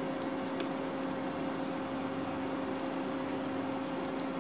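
Pancake batter cooking in a nonstick frying pan: a steady sizzle over a constant low hum.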